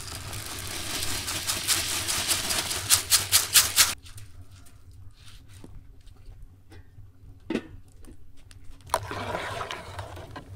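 Dry rice grains poured from a metal bowl into a pot of milk, a dense hissing rush ending in several quick sharp taps. Later, a long metal spoon stirs through the milk and rice in the aluminium pot.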